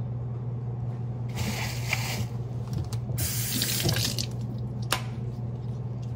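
Kitchen faucet running water over a carrot as it is rinsed under the stream, in two short spells a second or so apart, followed by a single sharp knock about five seconds in. A steady low hum runs underneath.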